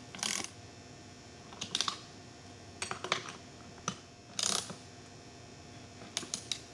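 Ratcheting wrench clicking in short, irregular bursts as bolts are tightened on a chrome air-filter cover, with pauses between strokes.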